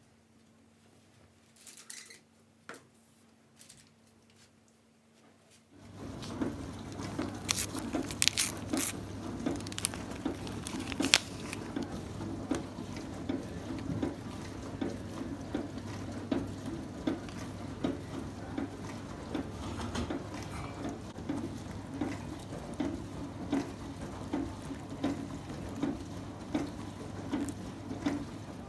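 Kitchen sink work: running water, dishes clinking and a regular scrubbing rhythm of about one stroke a second. It starts abruptly about six seconds in, after a few faint clicks.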